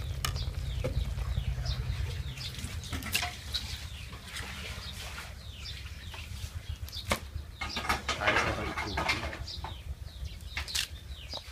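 Small birds chirping on and off over a low steady rumble, with a few sharp clicks of a knife cutting fresh herbs on a wooden board.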